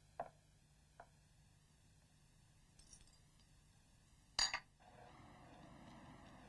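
Porcelain teacup clinking against its saucer: a few light, sharp clinks, then one louder clink about four and a half seconds in. After that, a faint steady background hiss.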